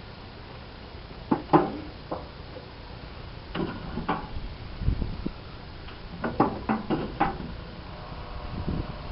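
Scattered light clicks and knocks in several short clusters from handling tools and parts during work on the engine's spark plug wires.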